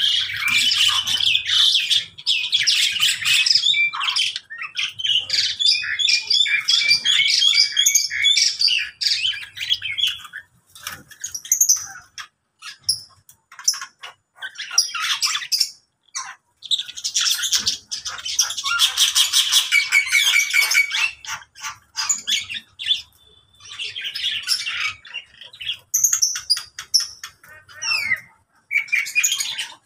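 A mixed flock of caged lovebirds and other small cage birds calling together: shrill chattering and squawks in bursts, broken by short pauses.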